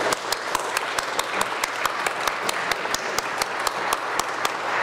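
Audience applauding, with one pair of hands clapping close to the microphone about five times a second above the general clapping.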